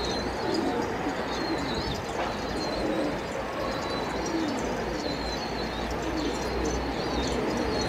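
Domestic pigeons cooing in repeated low, rolling calls, with short high chirps from small birds over them.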